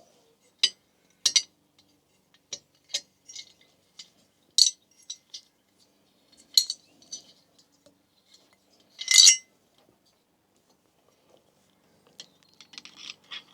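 Metal clicks and clinks of a spanner on a diesel heater's new glow plug as it is screwed in and tightened, in irregular single ticks, with one louder metallic clatter about nine seconds in.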